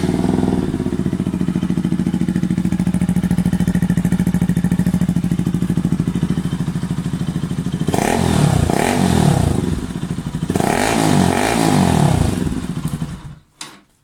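Sport motorcycle engine with an aftermarket exhaust idling steadily, then revved in a series of throttle blips after about eight seconds and again a little later. The engine is shut off shortly before the end.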